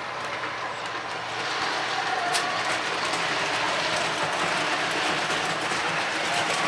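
Lionel R-16 model subway train running on its track: a steady whir of the motor and wheels on the rails that grows louder about a second in.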